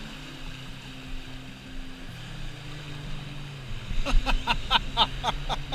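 Soft background music, joined about two-thirds of the way in by a fast, even squeaking about four times a second, typical of a spinning reel being wound quickly as a small fish is reeled in.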